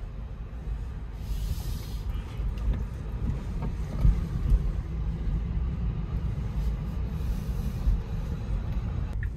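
Steady low road and tyre rumble inside a Tesla electric car's cabin as it drives slowly, with no engine note.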